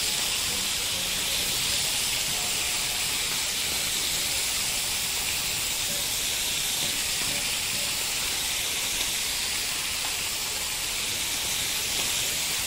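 Marinated beef strips sizzling steadily on a hot ridged grill pan.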